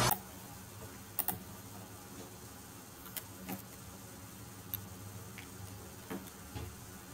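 Intro music cuts off abruptly, leaving a faint steady hiss with a handful of small, sharp clicks and taps at irregular intervals, about eight in all.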